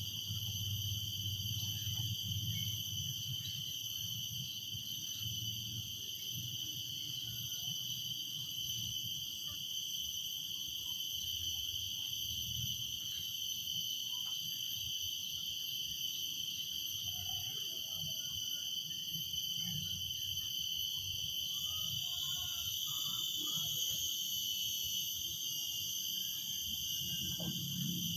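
Cicadas droning in a steady, continuous high-pitched chorus that swells slightly in the last few seconds, over a faint low rumble.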